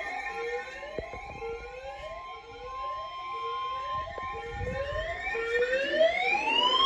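An electronic siren cycling through quick rising sweeps, about three every two seconds, then switching near the end to a slow wail that rises and falls. Under it a steady alert tone, the Weather Radio warning alarm, stops about five seconds in.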